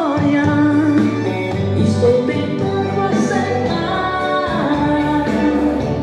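Dance music with singing: a sung melody over instrumental backing with a steady bass line, with cymbal hits now and then.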